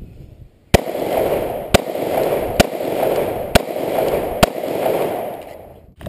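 Five gunshots fired at an even pace, about one a second, from a firearm at a shooting range.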